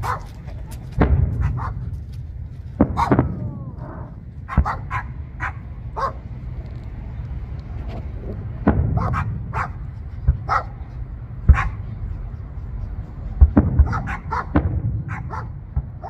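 Aerial fireworks bursting overhead: a string of sharp bangs and pops at irregular intervals over a steady low rumble, the loudest bang coming a little past halfway.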